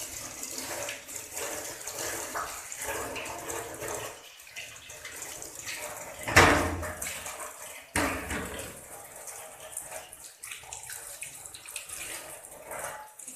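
Water running and splashing as lemongrass stalks and ginger are washed clean by hand, with a loud knock about six seconds in and a smaller one a second and a half later.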